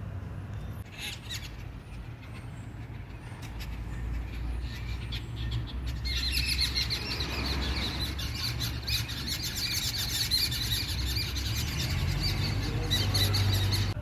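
A flock of babblers chattering, a busy overlapping tangle of harsh calls that swells about six seconds in and keeps going, over a low rumble.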